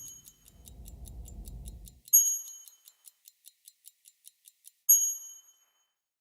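Fast, even ticking like a mechanical watch movement, about five ticks a second, with two bright bell-like chimes about three seconds apart. A low hum sits under the first two seconds.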